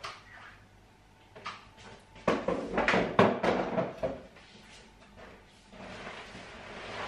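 Chairs being moved and set down on the floor: a quick run of knocks and clatters about two to four seconds in, then a softer, steadier rustling noise near the end.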